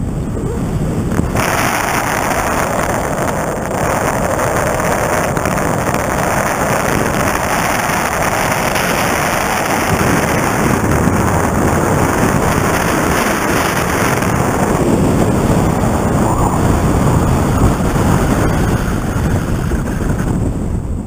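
Wind rushing over the microphone of an action camera on a pole during a tandem paraglider flight. It is a loud, steady rush that grows brighter about a second in and eases off near the end.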